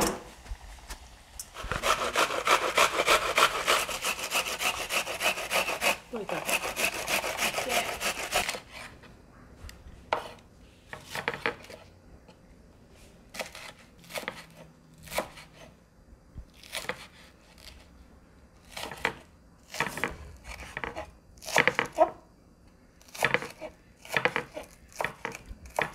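Kitchen knife cutting spring onions on a wooden cutting board. A dense run of very rapid strokes comes first, then separate, unevenly spaced knife chops from about ten seconds in.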